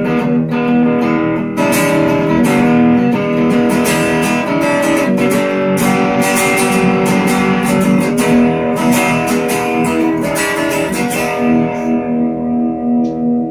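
Chapman ML3 Traditional electric guitar played through a Peavey Delta Blues 210 amp, on what is most likely the neck single-coil pickup: strummed and picked chords, ending on a held chord that rings on.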